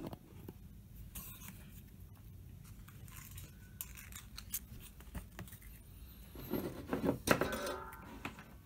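Small clicks, taps and scrapes of metal tools and parts being handled, with a louder jangling clatter about seven seconds in.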